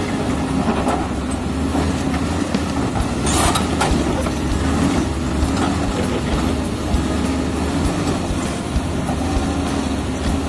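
Komatsu D85E-SS crawler bulldozer's six-cylinder diesel engine running steadily under load while pushing earth, with scattered short clanks. A short burst of harsh noise comes about three seconds in.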